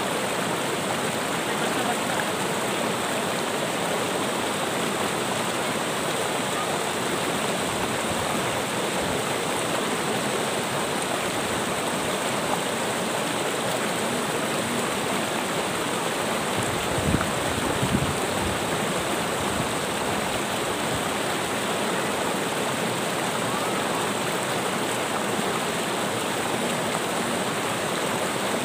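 A shallow, rocky river rushing steadily over stones and small rapids. Two brief low thumps come about two-thirds of the way through.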